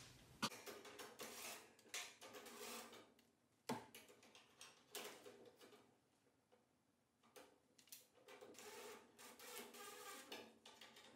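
Faint clicks, taps and scraping of small metal parts, lock nuts and a catch plate, being handled against a sheet-metal nest box. There is one sharper click just under four seconds in.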